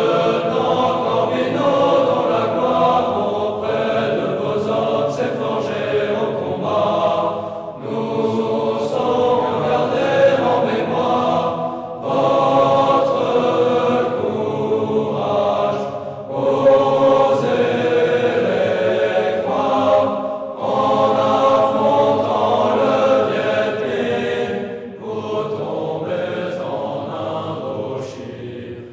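Choir of military cadets singing a French chant de promotion (class song), in sung phrases of a few seconds each with short breaks between them.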